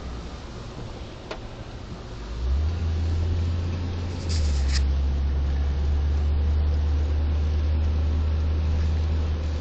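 Car interior noise heard from inside the cabin: a steady low engine and road rumble that grows louder about two and a half seconds in and again about four seconds in, with a brief hiss just after the second step.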